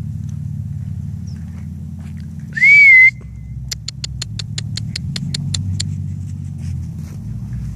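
A single short whistle that rises and then holds steady, followed a second later by a quick run of about a dozen sharp clicks, all over a steady low rumble.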